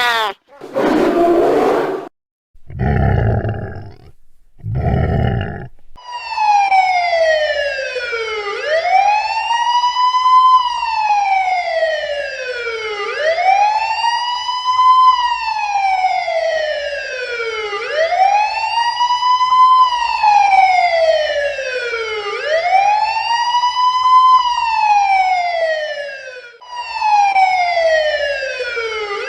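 Police siren in wail mode, its pitch sliding slowly down and then sweeping back up about every four and a half seconds, with a brief break near the end before it starts again. It is preceded in the first few seconds by a short noisy burst and two short, deeper sounds.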